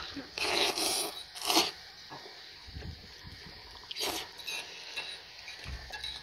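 Noodles in soup slurped off a spoon: a longer noisy slurp about half a second in, a short one about a second and a half in and another about four seconds in, with chewing between.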